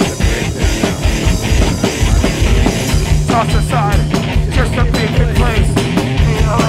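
Loud screamo-style rock song playing from a recording, with steady pounding drums; a sung or screamed vocal line comes in about three seconds in.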